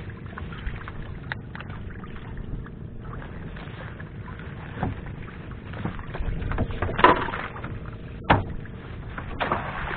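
Water sloshing around a small fishing boat, with a string of sharp knocks and splashes; the loudest comes about seven seconds in and another just over a second later.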